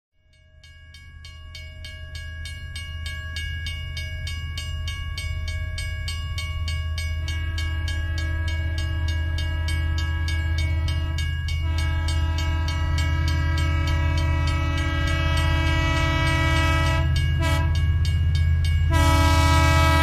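Background music fading in: held synth chords over a deep bass with a steady pulse, the chords changing every few seconds.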